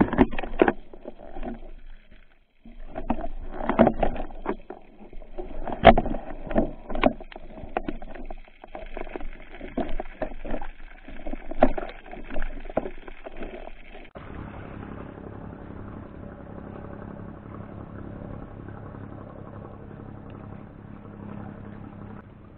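Muffled knocks, scrapes and water rushes picked up underwater by a speargun-mounted camera as the diver swims and handles the gun, with several loud knocks. About fourteen seconds in this gives way to a steady, even rush with a faint low hum above the water.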